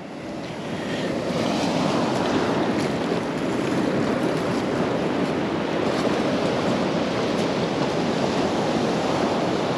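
Ocean surf rushing steadily on the beach, with wind on the microphone.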